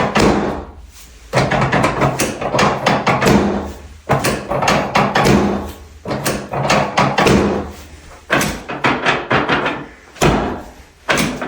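Rapid repeated thudding against a person's back in runs of about two seconds, broken by short pauses, from percussive soft-tissue work on the tight left side of the back.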